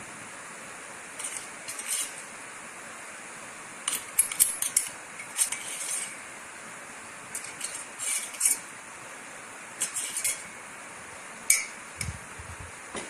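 Metal spoon clinking and scraping against a steel vessel in short clusters of taps, as coarsely ground spice powder is spooned into a pot of hot water, over a steady faint hiss.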